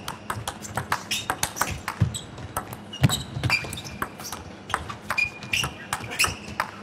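Table tennis rally: a plastic ball clicking off rackets and the table many times in quick, uneven succession, with a few short high squeaks in between.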